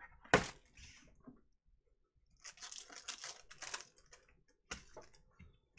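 Foil wrapper of a Panini Prizm Draft Picks football card pack crinkling as it is torn open by hand, with a sharp tap just after the start and another short click near the end.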